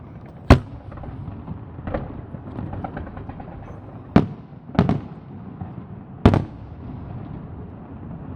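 Aerial firework shells bursting: four loud, sharp bangs and a softer one about two seconds in, over a continuous crackle of smaller bursts.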